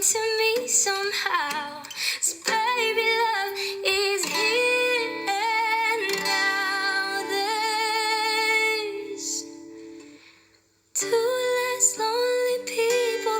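Background music: a woman singing wordless held notes over guitar. It fades out about ten seconds in, goes briefly silent, then the next song begins.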